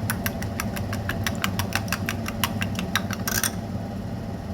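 Two eggs being beaten by hand in a bowl: a utensil clicking rapidly against the bowl, several strokes a second, stopping a little after three seconds with a short scrape. A steady low hum runs underneath.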